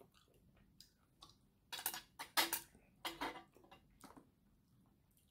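A run of sharp clicks and taps of chopsticks and a spoon against plastic takeout food containers, clustered from about two seconds in to about four seconds in.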